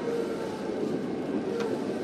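Tokyo Metro 02 series subway car with PMSM traction motors running, heard from inside the car: steady wheel-and-rail rumble with a faint steady motor whine and a single rail-joint click about three-quarters of the way through.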